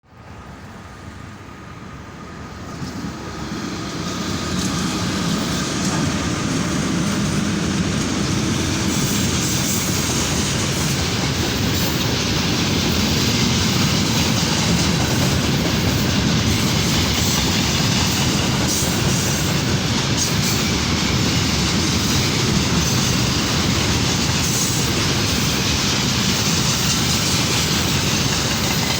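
Freight train hauled by a 2ES6 electric locomotive approaching and rolling past: the noise builds over the first few seconds, then holds as a steady, loud rolling noise of the wagons on the rails.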